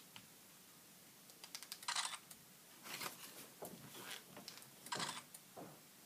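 Handling of a handheld digital camera: a scattering of soft clicks and button presses, with short hissy bursts about two, three and five seconds in, consistent with the shutter firing.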